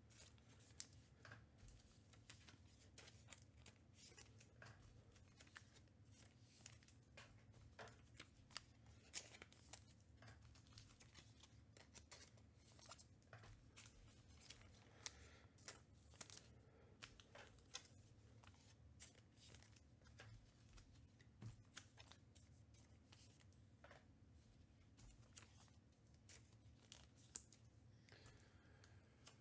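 Faint handling sounds of trading-card packs being torn open and cards being handled: scattered small clicks, scrapes and rustles over a low steady room hum.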